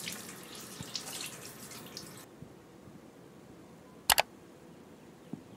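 Running water splashing, cut off abruptly about two seconds in, then a sharp double click about four seconds in.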